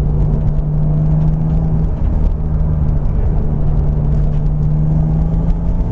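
Turbocharged S52 inline-six of a 1999 BMW Z3 M Coupe running at a steady speed: a steady engine drone over low road rumble, dipping briefly about two seconds in.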